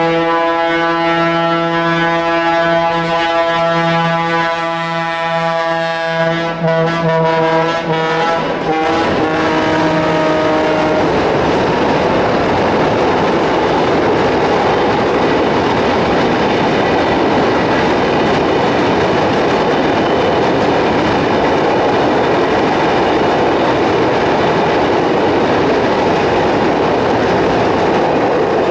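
Diesel locomotive D-16005 sounds its horn in one long, wavering blast of about ten seconds. The horn then stops, and the train's wheels rumble steadily across the steel truss bridge.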